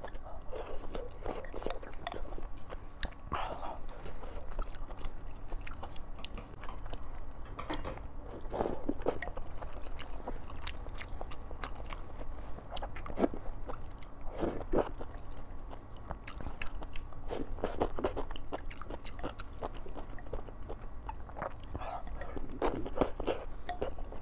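Close-miked eating sounds: chewing and wet slurps as wontons and greens in chili-oil soup are sucked off chopsticks and chewed, coming in clusters every few seconds.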